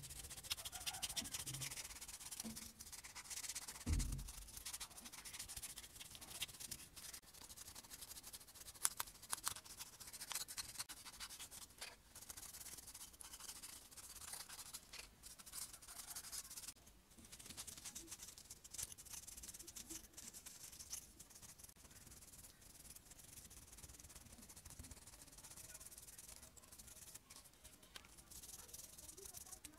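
Small bristle brush scrubbing a toy car's body and parts in soapy water: a faint, scratchy rubbing with quick strokes. A soft low knock about four seconds in.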